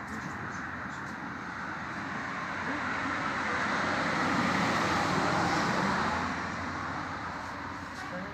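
Road traffic noise: a vehicle passes, its sound rising to a peak about five seconds in and then fading.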